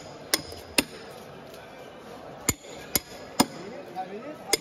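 Fish-cutting knife being honed on a sharpening steel: sharp metallic clinks that ring briefly, six of them at irregular intervals. Voices murmur in the background.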